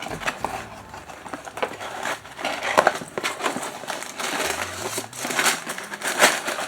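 Crinkling and rustling of LEGO packaging being handled as the box is unpacked: plastic parts bags and paper contents. The crackles are irregular and come in clusters.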